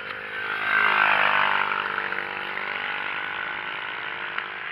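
Mini GP racing motorcycles at high revs passing close by, their engine pitch dropping sharply as they go past about a second in. A steadier, fainter engine drone from bikes further around the track follows.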